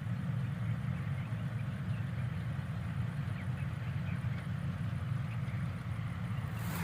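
Dasmesh 7100 combine harvester's engine and threshing machinery running with a steady low drone while harvesting wheat. A short rush of noise comes right at the end.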